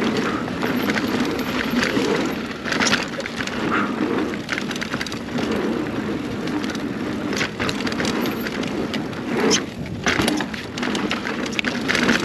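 A 2021 Scott Spark 970 full-suspension mountain bike riding down a dirt trail: steady tyre noise over the dirt, with frequent sharp knocks and rattles from the bike as it hits bumps and roots.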